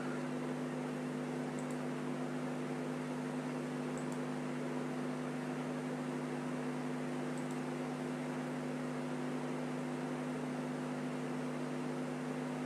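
A steady hum at several fixed pitches over an even hiss, from a running fan or electrical appliance, unchanging throughout.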